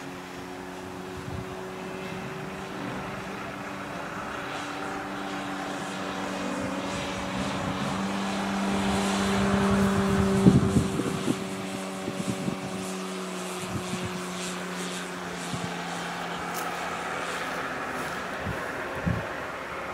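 Electric quarter-scale SIG Piper Cub RC model in flight: its outrunner motor and 20x6 propeller hum steadily in one even pitch, growing louder to about halfway as the plane passes nearer, then holding. A few low rumbling bumps come at the loudest point, and a single thump comes near the end.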